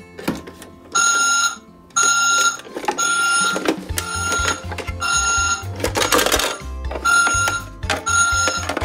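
Toy garbage truck's electronic sound effects from its small speaker: a reversing-style beep repeating about once a second, with a low engine rumble joining in about four seconds in.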